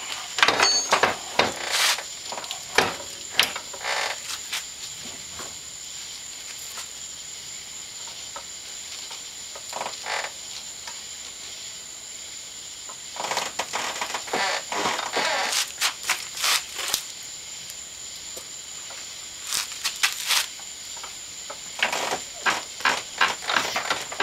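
Metal clunks, scrapes and rattles as an ATV transmission is tilted and worked out of the frame by hand. They come in clusters near the start, in the middle and near the end, with quieter stretches between.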